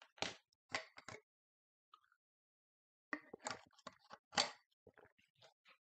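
A person taking a drink of water: a few short clicks and rustles from handling the container in the first second, a near-silent gap of about two seconds, then a cluster of clicks and rustles as he drinks.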